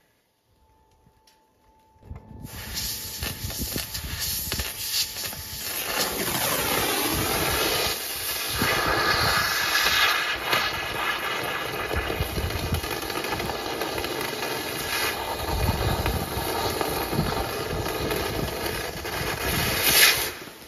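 Arcair Slice thermal lance burning: a loud, steady hiss of oxygen blasting through the burning rod as it melts out the middle of a rusted-in steel pin. It starts about two seconds in and cuts off suddenly near the end.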